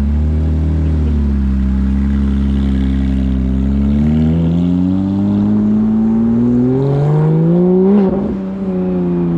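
Ford Mustang engine running at a steady pitch, then its revs climbing slowly for about four seconds and falling back about eight seconds in.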